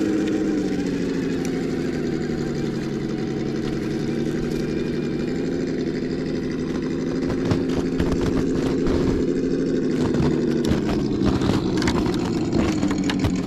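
Simulated engine note from a Sense Dual ESS sound kit playing through a speaker on an RC crawler truck. It holds a steady idle-like drone, rises briefly at the start and dips near the end. From about halfway, scattered clicks and knocks join it as the truck crawls over rough ground.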